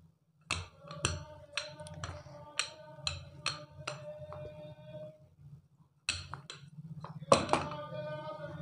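Background music with a steady beat of light knocks, about two a second, over held notes. It breaks off about five seconds in and starts again a second later.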